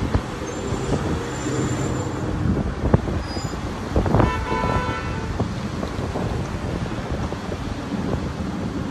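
City street traffic rumbling past, with a sharp knock about three seconds in and a brief, high, steady pitched tone about four seconds in, like a vehicle horn or brake squeal.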